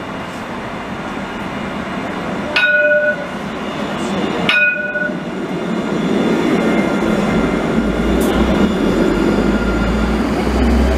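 Alstom Citadis light-rail tram at a platform sounding two short chime tones about two seconds apart. About six seconds in it pulls away, with a low rumble and rolling noise that grow as it gathers speed.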